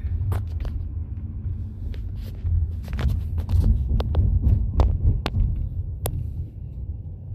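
Low, steady throbbing rumble with a handful of sharp clicks and knocks scattered through it, as a phone is handled and moved about at a car window.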